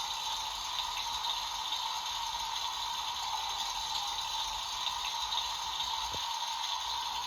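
Toy washing machine running with water inside, a steady hiss.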